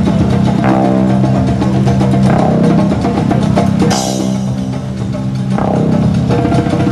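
Instrumental background music with a repeating chord pattern about every second and a half, and a bright crash about four seconds in.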